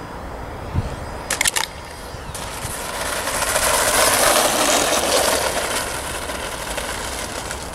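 Radio-controlled model jet's engine running with a rushing whoosh that swells to a peak about four seconds in as the plane rolls past at speed, then eases off. A quick cluster of clicks about a second and a half in.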